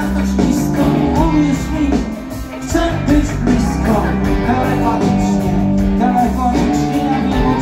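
Live rock band playing a song through a club PA: electric guitars, bass, drums and keyboards, loud and steady, with a short dip in level about two and a half seconds in.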